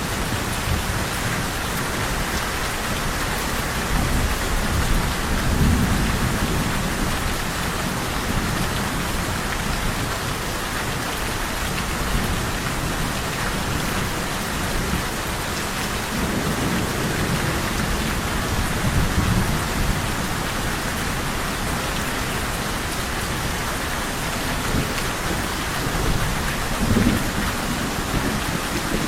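Steady rain pouring, with low rolls of thunder swelling up three times: a few seconds in, around the middle and near the end.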